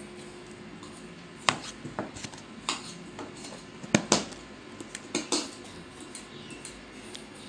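A plastic food storage box being closed. Its snap-on plastic lid is pressed down by hand with a series of sharp clicks and knocks, the loudest pair about four seconds in.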